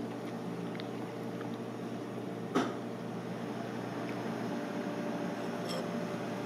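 Steady low hum of room machinery with several steady tones, broken about two and a half seconds in by a single sharp clink of a metal spoon against a ceramic plate, and a fainter click near the end.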